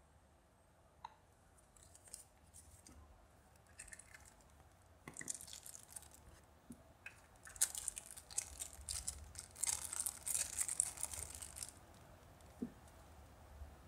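Thin clear plastic bag crinkling and tearing as it is pulled open by hand, with scattered crackles from about five seconds in that grow denser and louder, then stop shortly before the end.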